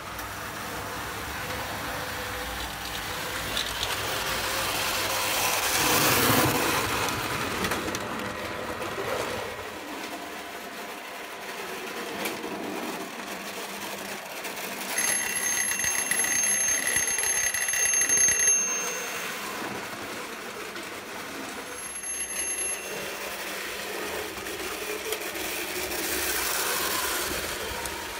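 Prewar Lionel O gauge electric train running on tinplate three-rail track, a steady rattling rumble of the wheels and motor that swells as it passes close about six seconds in. Partway through, a high ringing like an alarm bell sounds for about three seconds, then once more briefly.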